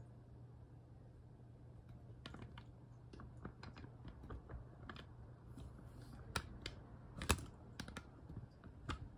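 A run of irregular light clicks and taps starting about two seconds in, the sharpest ones about two thirds of the way through, over a low steady hum.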